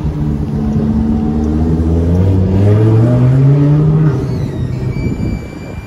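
A car engine accelerating past, its note climbing steadily for a couple of seconds, then dropping about four seconds in and fading as the car moves away.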